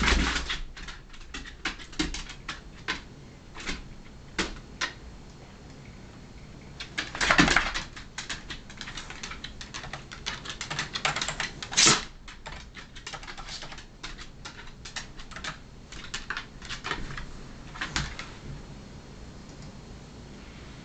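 A cat and dog scuffling: irregular sharp clicks and scrabbling, with a longer, louder burst about seven seconds in and a sharp one about twelve seconds in.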